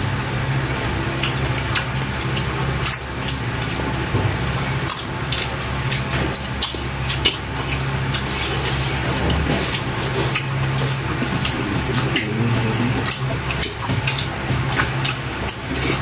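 Close-up wet eating sounds of people chewing saucy adobo octopus and rice with their hands: many short, wet lip smacks and clicks. A steady low hum runs underneath.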